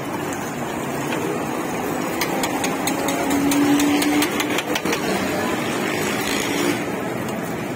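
Beaten egg frying on a hot flat steel griddle, with a steady sizzle and metal spatula clicking and scraping on the griddle about two to five seconds in. A steady engine hum runs underneath.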